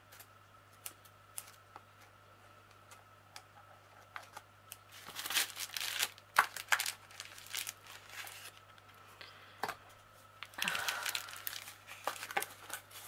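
A parcel's packaging being opened by hand: wrapping crinkling and rustling, with tearing, in scattered bursts and clicks that are busiest around the middle and again near the end.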